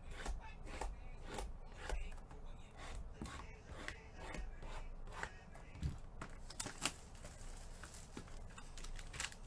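Hands handling cardboard trading-card boxes on a table: an irregular run of sharp taps, clicks and scrapes, several a second, with two louder clacks about six and seven seconds in.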